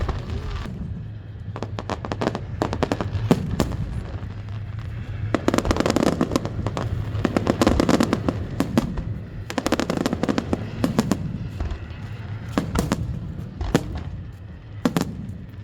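Fireworks going off in a rapid series of bangs and crackles over a low rumble, thickest in the middle of the stretch.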